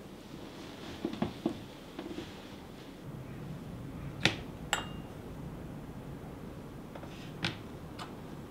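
Light knocks and clinks of kitchen containers being handled on a wooden worktop. There are a few soft knocks about a second in, two sharp clinks a little past four seconds, the second ringing briefly, and two more clicks near the end.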